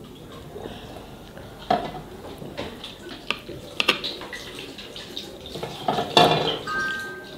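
Steel plates and bowls clinking and clattering as food is served and rice is mixed by hand, a handful of sharp clinks with the loudest clatter about six seconds in. A short ringing tone follows near the end.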